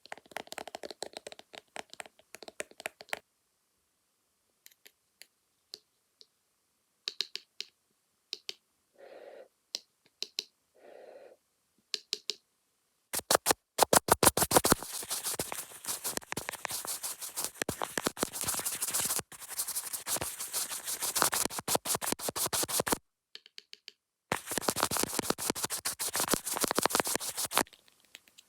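Fast ASMR tapping and scratching on the camera lens with makeup tools, close to the microphone: scattered sharp taps at first and two short soft brushing bursts, then long runs of rapid scratching from about halfway through, stopping briefly and starting again near the end.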